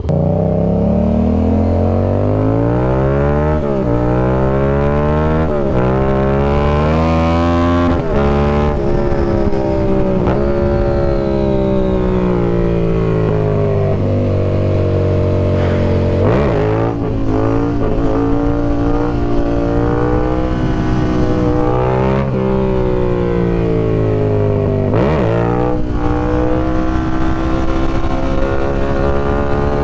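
Yamaha MT-07 parallel-twin with an aftermarket M4 exhaust, accelerating hard through the gears. The engine note climbs and drops sharply at each upshift, eases off with a falling note midway, then pulls again.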